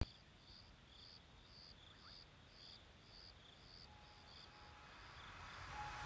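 Faint cricket chirping, a steady rhythm of about two short chirps a second. A soft sustained note comes in near the end as music begins to fade up.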